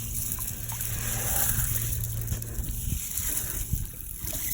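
Lake water lapping and splashing against rocks, over a steady hiss and a low steady hum.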